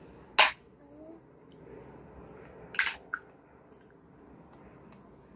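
Sharp clicks and taps of plastic Play-Doh can lids being handled against the plastic cans. The loudest is about half a second in, and two more come close together near three seconds.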